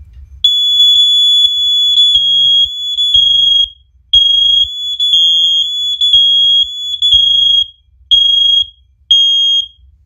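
Four First Alert OneLink hardwired smoke alarms sounding in test mode, set off one from another over their wireless link. Their high horn tones run out of step, so the beeps merge into long, really loud blasts broken by short gaps, and they stop suddenly near the end.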